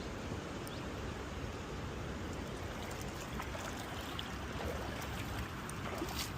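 Creek water running, a steady rushing noise with a few faint clicks in the second half.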